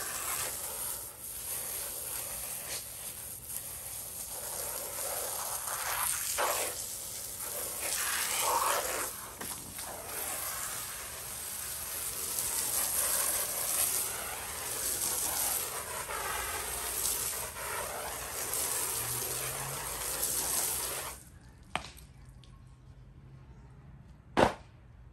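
Water spraying and splashing onto dirty rubber center-console inserts as they are rinsed, a fluctuating hiss that cuts off suddenly near the end. After it come a faint tick and then one sharp knock.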